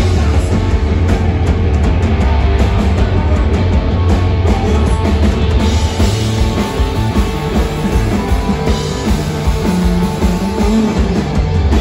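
Live rock band playing loud through the stage PA: electric guitars, bass and drum kit, heard from the audience.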